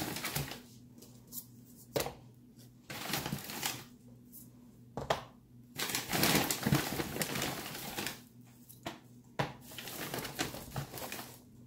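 Plastic grocery bags rustling and crinkling in irregular bursts as items are pulled out, with light clicks and knocks of small plastic yogurt cups being handled.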